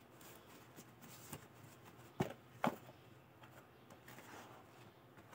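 Tactical knee and elbow pads being handled and laid down: soft fabric rustling with two short knocks about half a second apart, a little past the middle.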